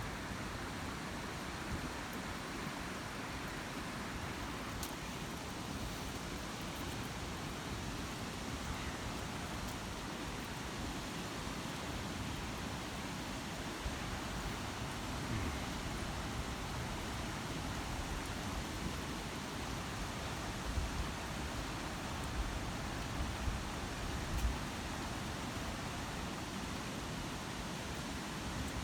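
Steady rushing of a mountain waterfall close by. A few short low thumps come in near the end.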